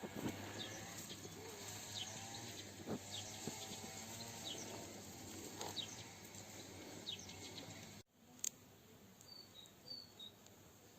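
Faint outdoor ambience with small birds chirping now and then over a low hiss; the sound cuts out abruptly about eight seconds in, then a few more faint chirps follow.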